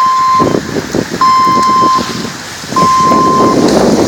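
Electronic beeping: one steady high tone, about three-quarters of a second long, repeating roughly every second and a half. Behind it is a rushing noise, like wind or a moving vehicle, that grows louder about two-thirds of the way through.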